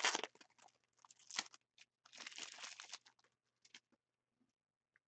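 Trading card pack wrappers crinkling and tearing as hockey card packs are opened, in a few short crackly spells over the first three seconds, then only faint ticks.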